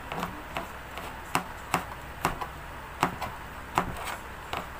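Kitchen knife slicing garlic cloves on a cutting board, each cut ending in a sharp tap of the blade on the board, about two to three cuts a second at an uneven pace.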